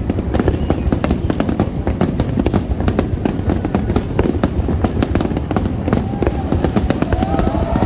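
Aerial fireworks: a dense, continuous barrage of bangs and crackling bursts over a steady low rumble.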